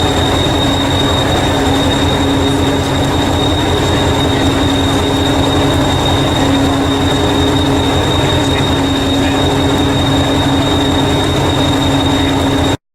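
Train running, a loud steady low rumble with a constant high-pitched whine over it; it cuts off abruptly near the end.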